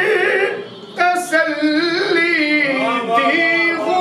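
Man singing a naat solo, drawing out long held notes that glide and waver in pitch, with a short break for breath a little after the start.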